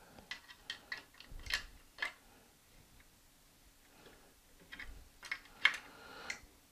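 Light, irregular clicks and ticks from hands working the axle nut on a scooter's front hub-motor wheel. The clicks come in two clusters with a quieter pause between them.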